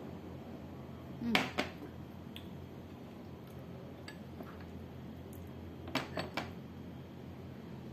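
Ceramic tableware clinking: a mug set down on the table with a sharp double clack about a second and a half in, then three quick clinks from the ceramic sauce bowl about six seconds in.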